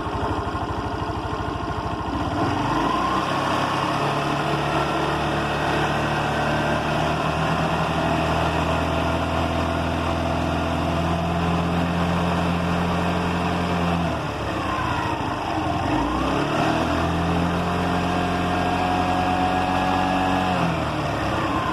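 Motorcycle engine revved up from idle about two and a half seconds in and held at a raised speed, falling back at about fourteen seconds, then revving up again and dropping near the end. It is run to test for a rattle at mid-to-high revs, which the owner puts down to a loose wire clip on the air filter.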